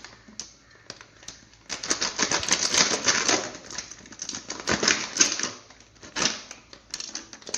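Dry oats poured from a packet into a bowl: a dense, rattling patter of flakes in a couple of bursts, with a few scattered clicks before and after.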